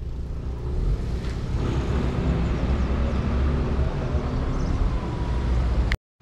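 Outdoor street noise: a steady low rumble with a hiss over it, no clear single event, broken by a moment of silence near the end.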